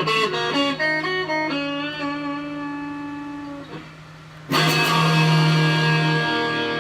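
Electric guitar with one tone knob at full and the other rolled all the way down. A quick run of picked single notes ends in a held note that rings and fades. After a short pause a chord is struck and rings on.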